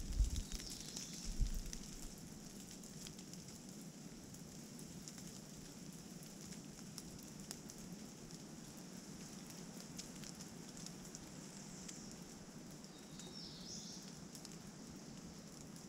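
Steady light rain falling on the forest, a soft even hiss with scattered faint drip ticks. Wind buffets the microphone with low rumbles in the first couple of seconds. One brief high note sounds near the end.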